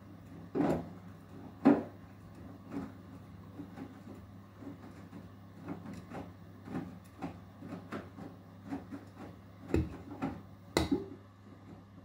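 Beko WTK104121W front-loading washing machine on its Eco 40 wash, its drum turning very slowly: wet laundry tumbling inside with irregular knocks and thuds over a steady low motor hum. The knocking dies away about a second before the end.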